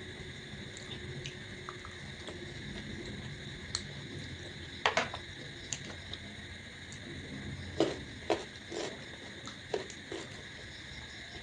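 Mouth sounds of a person eating luchi and potato curry by hand: wet chewing and smacks, with a cluster of sharp clicks near the middle and several more in the second half. A steady high drone of crickets runs underneath.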